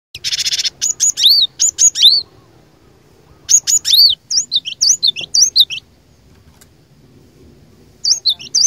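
Cinereous tit (glatik batu) calling in three bouts with short pauses between them. The first bout opens with a fast buzzy rattle, and each bout is a run of sharp, high, down-slurred whistled notes.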